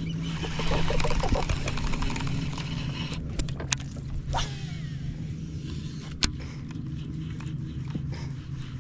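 A baitcasting rod and reel cast from a bass boat: a whoosh as the line goes out about a second in, then a few sharp clicks from the reel as the retrieve begins. Under it all runs the steady low hum of an electric trolling motor.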